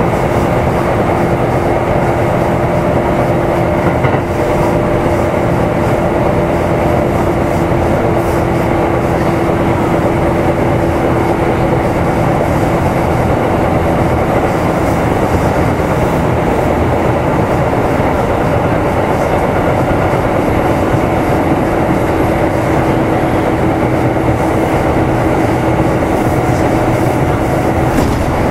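Kintetsu 2800 series electric train running at a steady speed, heard from aboard motor car Mo 2852: rolling wheel-on-rail noise with a steady motor and gear hum that fades briefly in the middle and comes back.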